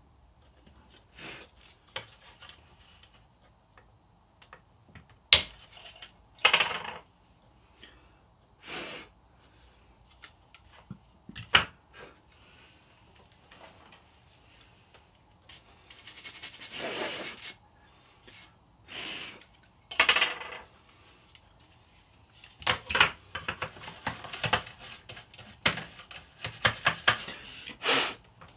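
Small plastic fan parts of a graphics card cooler being handled and pried apart on a desk: scattered clicks, taps and knocks as the jammed fan's blade comes off its hub. A short rushing hiss comes about halfway through, and a quick run of clicks and rattles near the end.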